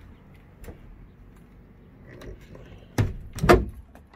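An interior door with a brass knob being unlatched and pulled open: two loud rattling knocks about half a second apart near the end, after a few light handling clicks.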